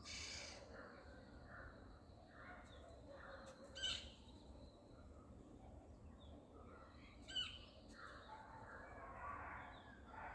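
Faint outdoor bird calls, with scattered short calls throughout and two brief, sharper calls about four and seven seconds in.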